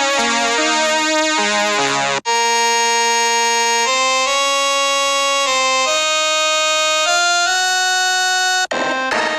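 Retro-style synthesized music in short separate clips. A quick run of notes cuts off sharply about two seconds in. Long held reedy, harmonica-like notes follow, stepping to a new pitch every second or so, then a second sharp cut near the end into quick short notes.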